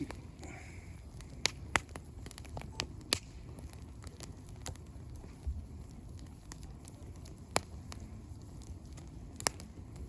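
Wood campfire crackling, with irregular sharp pops and snaps over the low rush of the flames.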